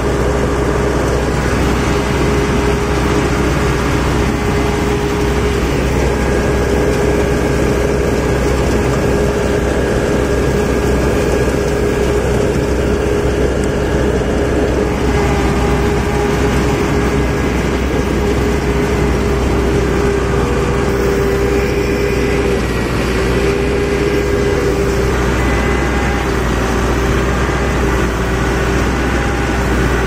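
Combine harvester running steadily at close range: a constant engine and machinery drone with a steady whine, as rice grain is augered out through its unloading pipe.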